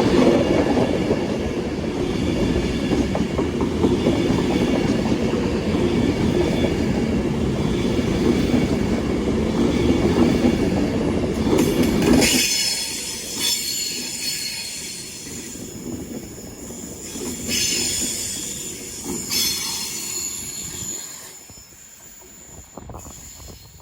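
Two coupled Class 156 diesel multiple units departing. For about twelve seconds there is loud, heavy diesel engine and wheel noise, which cuts off sharply. After that, high-pitched wheel squeal on the rails comes and goes and fades away.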